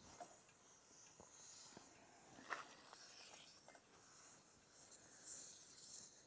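Near silence, with a few faint clicks and knocks, the loudest about two and a half seconds in, over a faint high hiss.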